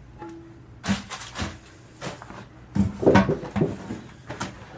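Knocks and clunks of toilet tank parts and the water supply line being handled during a fill-valve replacement: a cluster about a second in, another around three seconds in, and one near the end.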